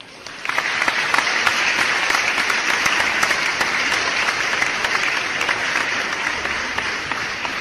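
Applause from a crowd: dense, irregular clapping that starts suddenly and tails off near the end.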